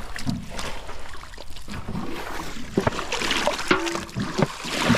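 Water splashing and sloshing with irregular splashes, as people wade and grope by hand through a shallow, muddy pond. It is busiest about three seconds in. A brief voice sound comes near the end.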